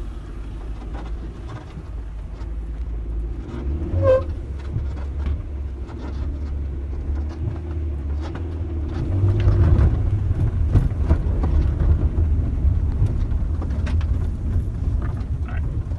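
1999 Honda CR-V's four-cylinder engine pulling the SUV over a rough dirt trail, with many knocks and rattles from the body and suspension over the bumps. A short squeak sounds about four seconds in, and the engine gets louder from about nine seconds in.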